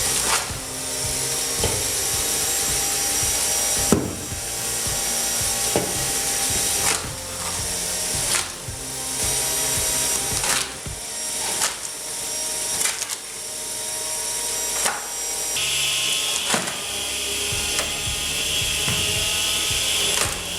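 An electric screw-type wood splitter running, its motor whining steadily while the cone bores into logs and the wood creaks and splits apart, in several short takes that change abruptly every few seconds.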